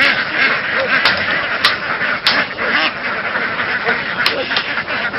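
A large flock of domestic laying ducks quacking, many calls overlapping into a continuous clamour, with a few sharp clicks now and then.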